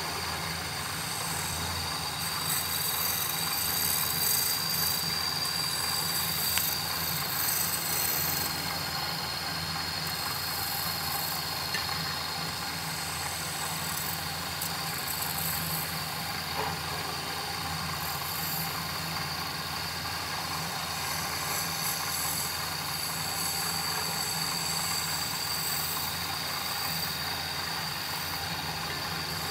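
Wood lathe motor running steadily, a low hum with a constant high whine, while a hand-held turning tool cuts the spinning wooden goblet. The cutting comes and goes as a hissing scrape.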